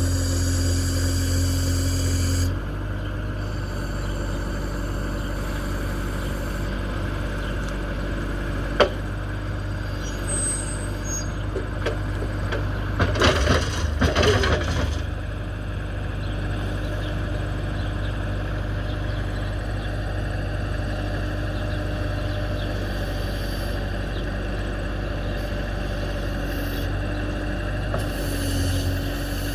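Bobcat 773 skid steer's turbo diesel engine running steadily, louder and slightly deeper for the first couple of seconds and again near the end, as if pulling under load. A sharp click about nine seconds in, and a burst of scraping clatter from about thirteen to fifteen seconds, the loudest part.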